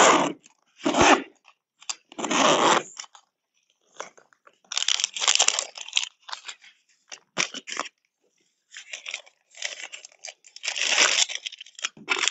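Clear plastic zip-top bags crinkling and rustling in irregular bursts as food is taken out of a soft-sided cooler and handled.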